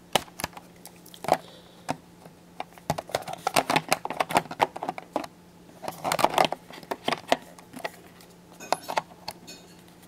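Clicks, taps and rattling of a small camera accessory being handled and fitted onto a camcorder. The handling comes in scattered clicks, with busier rattling stretches in the middle and about six seconds in.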